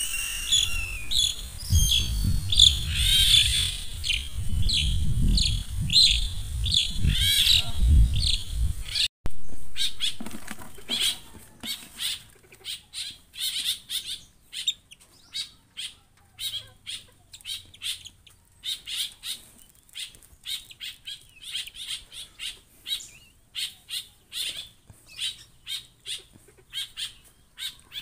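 Captive stilts calling with short, sharp, repeated notes. For the first nine seconds the calls come thick and overlapping over a low rumble, with wing flapping. After an abrupt cut they come singly, about one or two a second.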